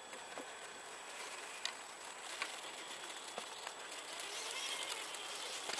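Electric RC crawler truck creeping through snow: faint crunching with scattered small ticks, growing a little louder near the end.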